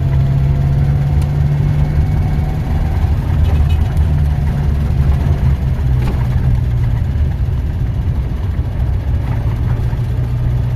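An engine running steadily with a loud, even, low drone.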